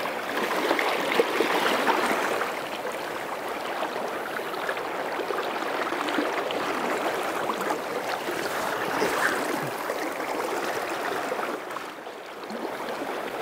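Steady rush of a fast-flowing river, dipping slightly in level near the end.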